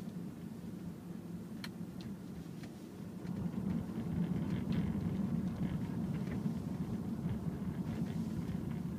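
Low rumble of a car's engine and tyres heard from inside the cabin, growing louder about three and a half seconds in, with a few faint ticks.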